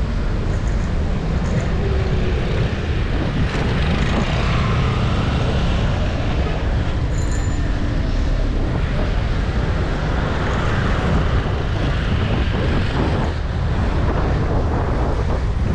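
Steady wind rumble on the microphone of a moving bicycle, mixed with city traffic noise. A brief high-pitched ring sounds about seven seconds in.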